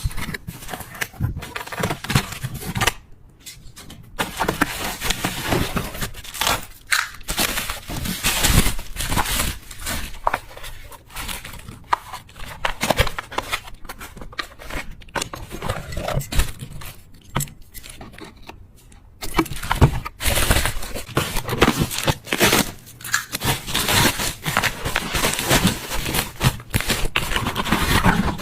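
Hands unpacking and handling items: crinkling and tearing packaging, with scattered clicks and knocks. There are short pauses about three seconds in and again near nineteen seconds.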